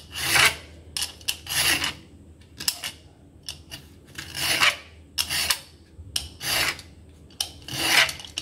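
Vegetable peeler scraping down a raw carrot in about a dozen short, irregularly spaced strokes, shaving off thin strips of peel.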